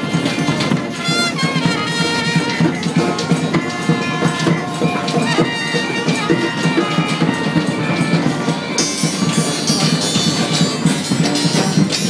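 Marching street brass band playing: trumpets, saxophone and sousaphone over a drum beat.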